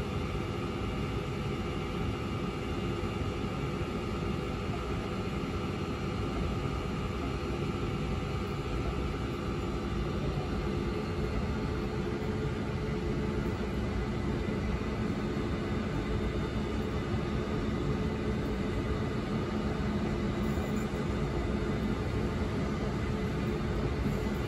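LNER Azuma high-speed train passing through the station without stopping: a steady rumble of wheels and running gear with a hum, growing slightly louder toward the end.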